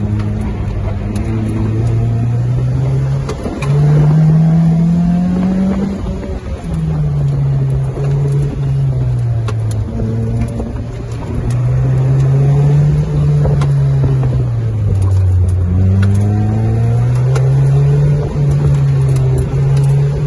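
Lotus Elise's four-cylinder engine heard from inside the cabin during a timed autocross run, revving up under throttle and dropping away off throttle over and over as the car works through the cones. Its pitch jumps abruptly a couple of times, as at a gear change.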